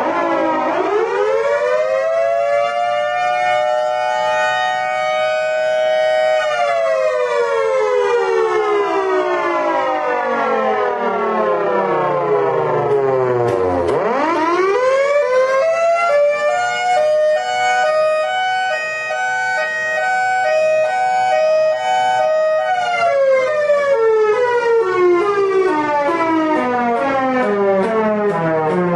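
3D-printed miniature Federal Signal Thunderbolt 1003 siren with its horn rotating. It winds up fast to a steady wail, winds down slowly, winds up again to a second held tone that pulses, and winds down again near the end.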